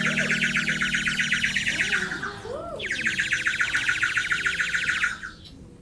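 Toy bird whistle blown in a rapid warbling trill, in two long stretches with a short break about two seconds in, over faint singing.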